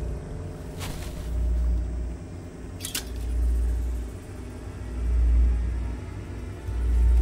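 Deep, low rumble from a war drama's sound design, swelling and fading in a slow, regular pulse about every two seconds. Two brief sharp sounds cut through it about a second and three seconds in.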